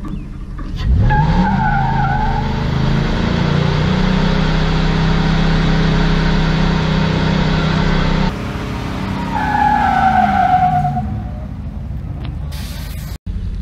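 Nissan Titan pickup's V8 revs up sharply about a second in and is held at high revs while the tyres squeal, a burnout on the wet track. After an abrupt cut the tyres squeal again as the revs fall away, and near the end there is a short loud hiss.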